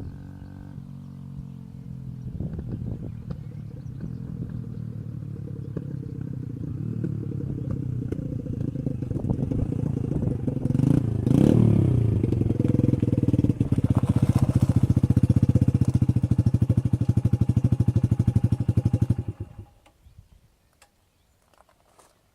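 Orcal Astor 125 motorcycle engine running, growing steadily louder and reaching its loudest about eleven seconds in. It then runs close at hand with an even throbbing beat and cuts off abruptly about nineteen seconds in, leaving near silence for the last couple of seconds.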